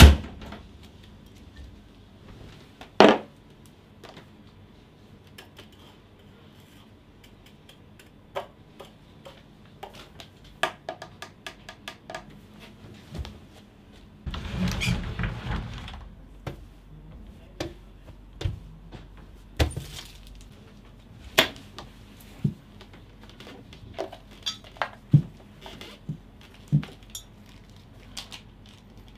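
Small household handling sounds: a sharp click as a cupboard door is opened, a louder knock about three seconds in, then scattered light taps, clinks and knocks, with a scraping rustle lasting about two seconds midway.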